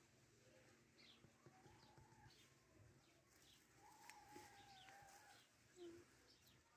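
Near silence with faint birds chirping in the background, and one longer held call about four seconds in.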